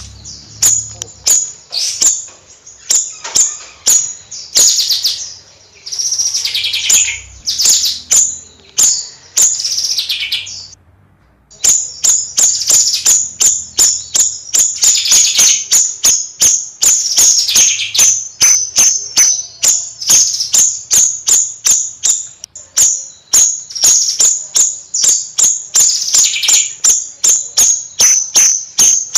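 Bayeman songbird calling: a fast run of sharp, high chirps, several a second, broken by a few longer trilled phrases, with a brief pause about ten seconds in.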